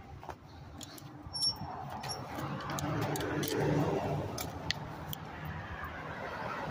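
Bicycle rattling and clicking as it rolls over paving stones and wooden boardwalk planks, with a broad rush of traffic noise that swells and fades around the middle.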